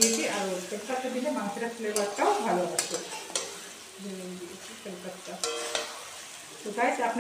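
Meat frying and sizzling in a large metal kadai while a metal spatula stirs and scrapes it, with several sharp clinks of the spatula against the pan. The meat is being browned (kosha) in spices and tomato.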